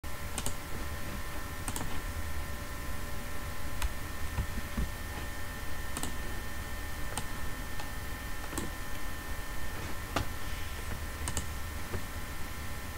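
Computer mouse clicking about a dozen times, irregularly, every second or two, over a steady electrical hum with a faint high whine.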